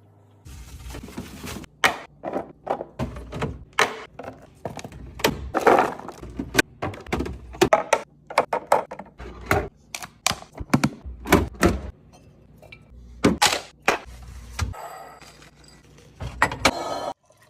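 Groceries and drinks being set down and arranged on fridge shelves: an irregular run of knocks and clacks of packages and containers, several a second.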